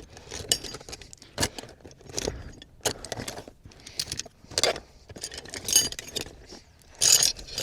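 Metal hand tools clinking and rattling against each other as they are pushed back into the pockets of a fabric tool roll, a string of irregular sharp clinks, several with a short metallic ring.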